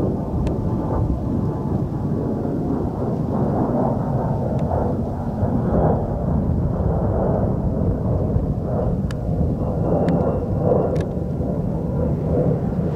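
A-10 Thunderbolt II's twin General Electric TF34 turbofans making a steady, deep rumble as the jet flies past. A few faint clicks sit on top of it.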